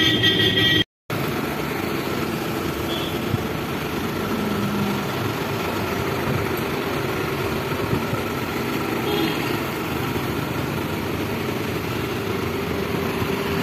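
Tractor diesel engine running steadily. The sound drops out briefly about a second in.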